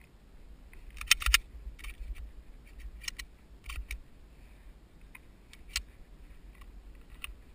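A few sharp mechanical clicks and clacks, a loud pair about a second in and lighter ones spread through the rest, sounding tinny through a GoPro waterproof case.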